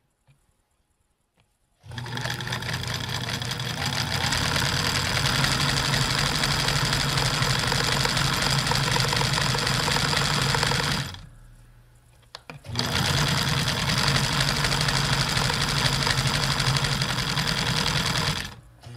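Kenmore 158-series electric sewing machine running a smock stitch through stretchy knit, heard close up from against the machine's body. It starts about two seconds in, stops for a moment around eleven seconds, then runs again until just before the end.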